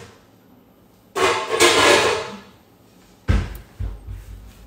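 Kitchen cookware clattering for about a second while a pan lid is sought, then a heavy thump followed by two lighter knocks.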